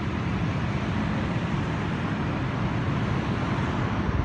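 Steady rumble and hiss of city traffic noise, with no distinct events.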